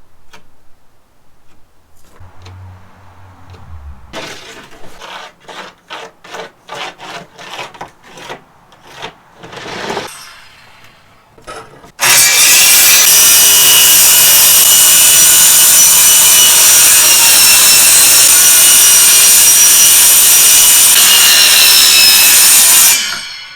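Some quieter knocking and scraping, then a power saw cutting the end off a sheet of plywood. The saw runs loud and steady with a high motor whine for about eleven seconds and stops shortly before the end.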